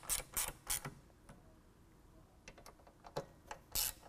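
Hand ratchet with a small extension snugging up a bolt on the soft-top bow bracket: a quick burst of pawl clicks on each swing of the handle, about three a second. The ratcheting pauses about a second in, a few faint small clicks follow, and the ratcheting resumes near the end.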